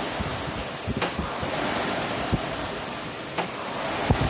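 Concept2 rowing ergometer's air-resistance flywheel fan whooshing steadily, swelling with each drive at about 25 strokes a minute, with a few light knocks.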